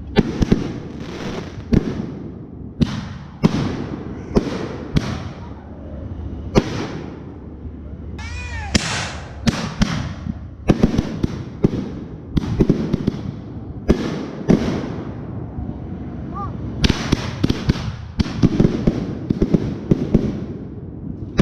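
Aerial fireworks going off in a rapid series of sharp bangs from launches and bursts. A whistling firework glides in pitch about eight seconds in.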